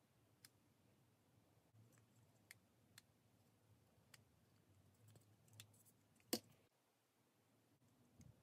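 Near silence, with a few faint, sharp clicks of fingers handling a small diecast toy car, and one louder click about six seconds in.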